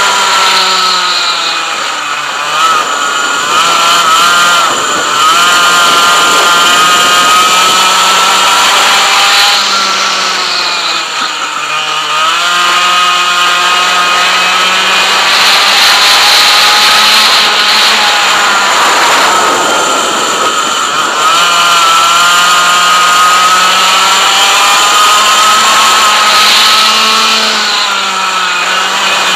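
100cc two-stroke racing kart engine running at full throttle. Its pitch climbs through each straight and drops briefly as the kart slows for corners, about five times.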